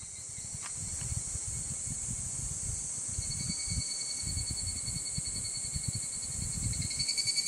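Steady high chirring of insects, with a thin, rapidly pulsing trill that grows stronger near the end, over an uneven low rumble.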